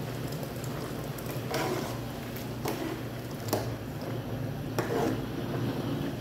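Metal ladle stirring a watery pot of mung bean soup, with several short knocks of the ladle against the aluminium pot, over a steady low hum.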